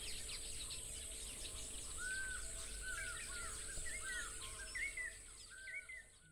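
Birds chirping and calling, many quick overlapping chirps over a steady high hiss, ending abruptly near the end.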